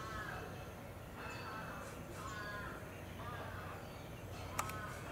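A crow cawing repeatedly, about five caws roughly a second apart. A single sharp click near the end.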